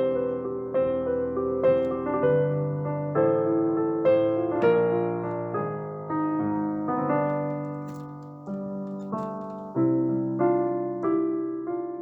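Solo piano playing a slow, gentle piece: single notes and chords struck one after another and left to ring.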